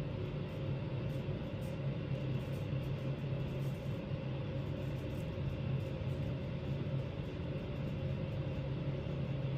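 Steady low hum with a faint hiss: room background noise, with no distinct event.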